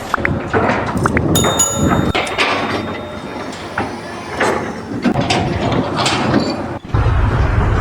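Mechanical clatter: a run of knocks and clicks with brief metallic ringing, giving way near the end to a steady low rumble.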